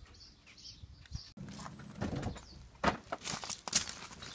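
Birds chirping faintly; then, about a second and a half in, a run of sharp clicks, knocks and scrapes from metal tools being handled on a stainless steel tube.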